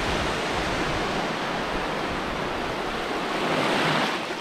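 Small sea waves breaking and washing up a sandy beach at the water's edge: a steady hiss of surf that swells a little near the end as a wave runs in close.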